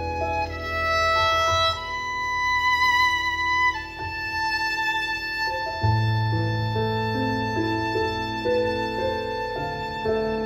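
Violin playing a slow melody in long held notes with vibrato over piano accompaniment; a high note gives way to a long lower note about four seconds in, and the piano's deeper chords come in a couple of seconds later.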